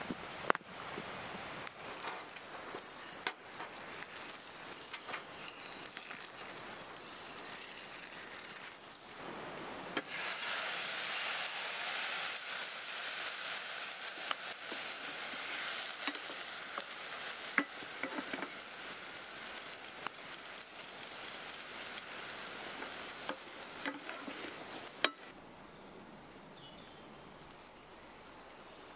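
Food sizzling in a frying pan on a small wood-burning camp stove, stirred with a wooden spoon: a steady frying hiss with small crackles that fills the middle of the stretch and stops abruptly. Before it come scattered light clicks and knocks.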